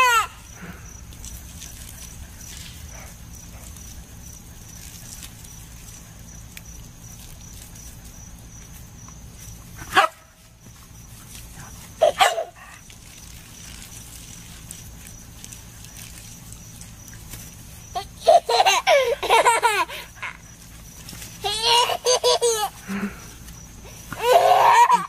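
A toddler laughing and squealing in short bursts, a handful of times, with longer runs of giggling in the last third, over a steady low background hiss.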